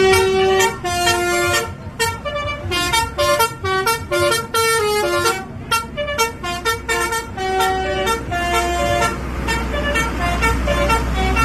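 Basuri telolet horn, a multi-tone musical bus air horn, playing a slow tune of short notes at changing pitches. A low engine rumble runs underneath and grows louder in the last few seconds.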